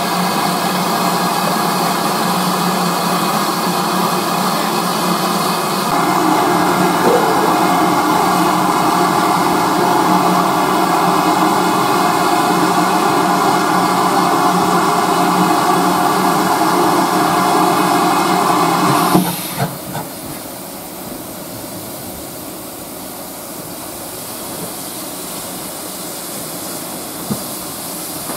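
Steam tank locomotive blowing off steam: a loud, steady hiss that gets louder about six seconds in and cuts off suddenly about nineteen seconds in. The quieter stretch after it holds a few faint clicks.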